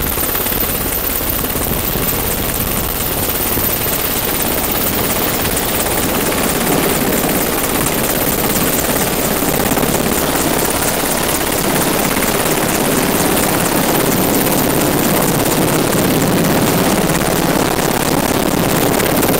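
Navy H-60 Seahawk helicopter hovering close overhead, a steady loud rotor and turbine noise that grows a little louder about six seconds in as it comes down low for a sling-load hookup.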